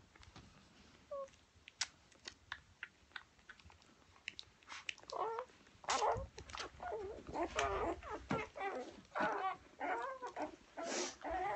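Newborn golden retriever puppies nursing: small clicks in the first few seconds, then repeated short, wavering squeaks and whimpers.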